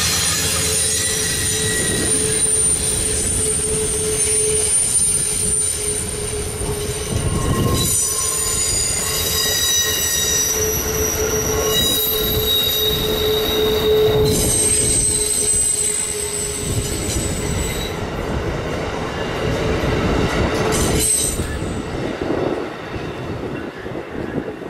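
Amtrak passenger cars rolling past, their wheels squealing in several steady high tones that change from car to car over the rumble of the wheels on the rails. The sound fades near the end as the last car passes.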